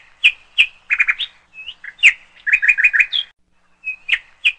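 A small songbird chirping: a string of short, sharp chirps at uneven spacing, with a quick run of about five in a row midway.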